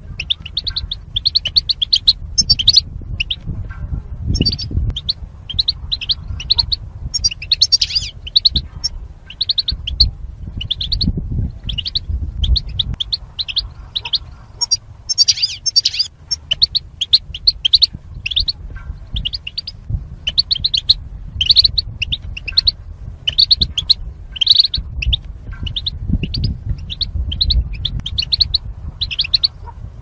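European goldfinch singing: a long, unbroken twittering of rapid, short high notes, with a low rumble underneath.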